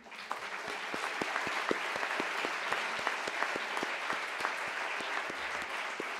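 Audience applauding: many hands clapping together, starting suddenly and keeping up at a steady level.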